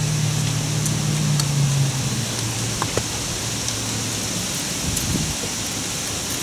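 A few faint clicks as new front brake pads are set into the caliper bracket's rattle clips. Under them runs a steady background hiss, with a low hum that drops and fades out about two to four seconds in.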